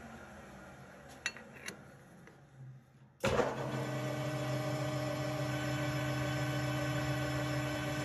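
Metal lathe switched on about three seconds in, its motor and spindle starting abruptly and then running with a steady hum. Two light clicks come before it.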